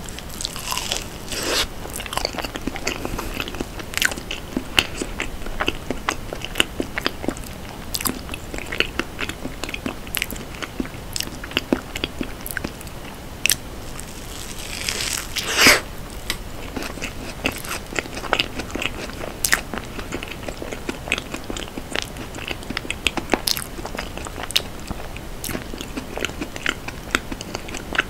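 Close-miked eating: bites into a soft, cream-topped cake dessert and steady chewing with small mouth clicks, with louder bites about a second in and again about fifteen seconds in.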